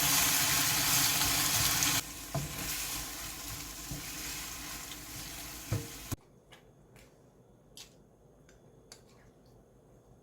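Food sizzling and frying in a pan while being stirred, with a few knocks of the utensil against the pan. The sizzle is loud at first, drops to a quieter level about two seconds in, and cuts off abruptly about six seconds in. Only faint light clicks follow.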